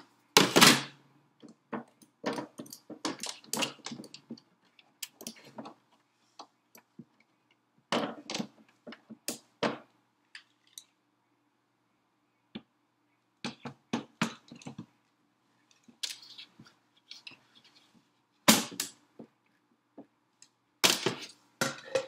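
Scattered clicks, knocks and thunks of plastic and metal parts being handled as the bean hopper is fitted and twisted onto the top of an espresso machine. A few of the knocks are louder than the rest.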